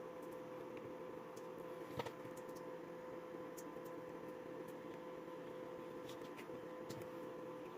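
Faint steady electrical hum, with scattered light clicks and taps and one sharper tap about two seconds in.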